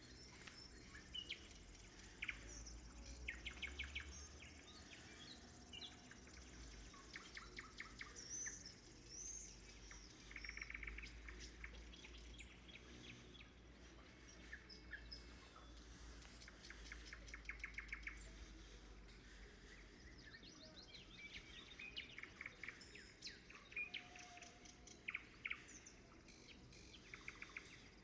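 Nightingale singing: short phrases of rapid repeated notes and clear whistles, a new phrase every few seconds.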